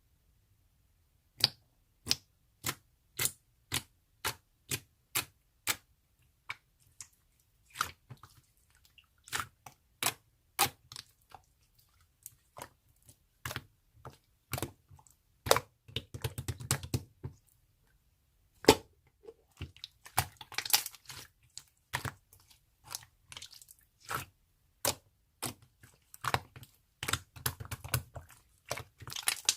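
A run of sharp taps or clicks, about two a second at first, then irregular clicks mixed with short bursts of rustling or crinkling.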